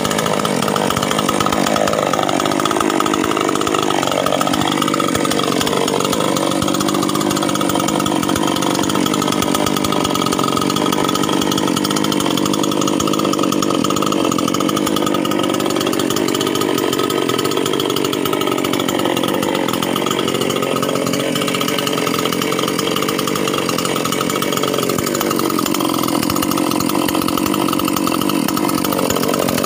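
Small two-stroke chainsaw engine, newly fitted with a NICO SILEN 5800 cylinder, running unattended with its speed drifting slowly up and down, a first run to break in the new cylinder.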